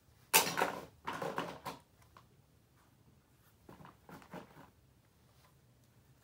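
Small plastic and metal parts of a Sony TCM-20DV cassette recorder rattling and clattering as it is handled and pulled apart by hand: two short bursts in the first two seconds, then a fainter one about four seconds in.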